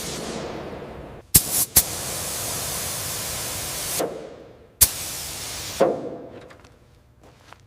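Sharp hits, then a steady spraying hiss for about two seconds that fades away, broken by two more sharp hits.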